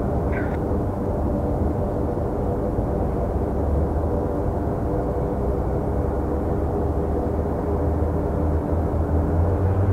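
Twin-engine jet airliner on final approach with landing gear down: a steady low engine rumble with faint humming tones, the low hum growing stronger and rising slightly near the end.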